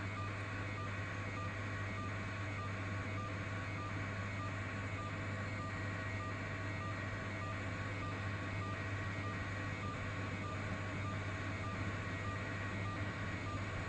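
News helicopter's engine and rotor noise heard from on board: a steady drone with a strong low hum.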